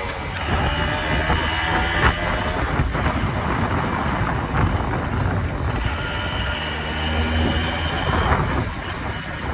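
Engine running, its pitch shifting in the first couple of seconds and then holding steady, over a continuous low rumble.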